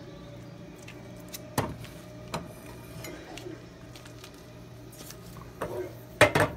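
Small saucepan on a gas stove being handled as butter goes in: a couple of light clicks, then two sharp knocks near the end, over a steady low hum.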